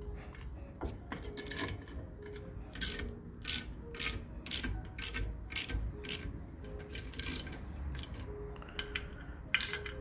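Steel hand tools clicking and clinking: a chrome socket extension and ratchet being handled and fitted together, a run of short, sharp, irregular clicks.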